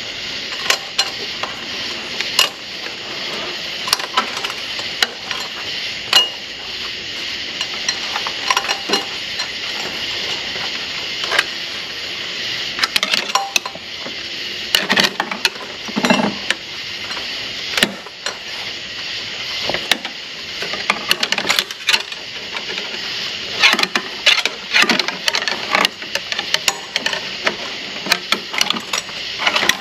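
Irregular metallic clinks and knocks of hand tools and parts being worked in a truck's engine bay, with a steady hiss underneath.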